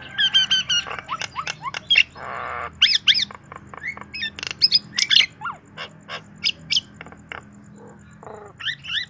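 Javan myna singing a fast, varied song. It runs rapid repeated whistled notes, sweeping whistles and sharp chirps, with a harsh rasping squawk about two seconds in, mixing in phrases learned from canary, white-rumped shama and green leafbird tutor songs.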